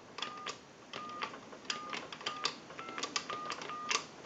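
Payphone touch-tone keypad being dialed: about seven key presses in quick succession, each a click with a short dual-tone beep, dialing out a call.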